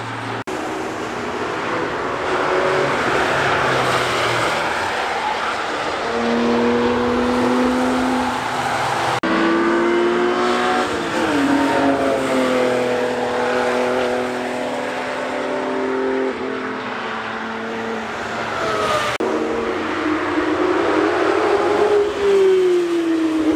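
Track cars driving hard past on a racing circuit, one after another. Their engine notes rise and fall as each goes by, and the sound jumps abruptly between passes twice, about a third of the way in and near the end.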